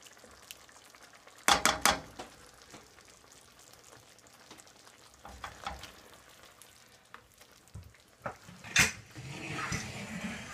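Black plastic spoon stirring through a thick simmering bisque in a nonstick pan, with sharp knocks and scrapes of the spoon against the pan, a quick cluster about a second and a half in and another knock near nine seconds, then a short stretch of stirring noise. The sauce simmers faintly underneath.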